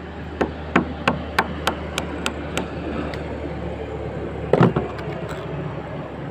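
Quick run of about eight sharp taps, roughly three a second, then a heavier knock about four and a half seconds in: a hand tool being struck into the roof edge to pierce a hole.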